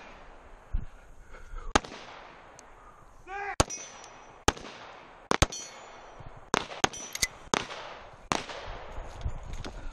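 Handgun shots, about nine, fired at uneven intervals. A brief shout comes just before the second shot.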